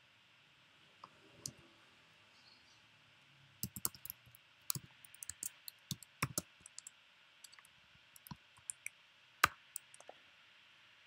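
Computer keyboard keystrokes, typed slowly and irregularly as single sharp clicks with pauses between them, busier in the middle stretch, over a faint steady hiss.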